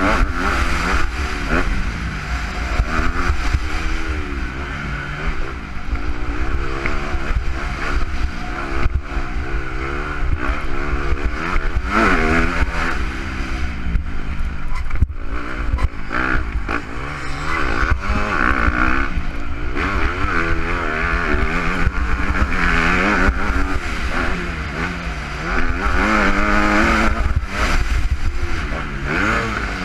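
Motocross bike engine heard from on board, revving hard and falling off again and again through the gears, with a heavy rumble of wind on the microphone.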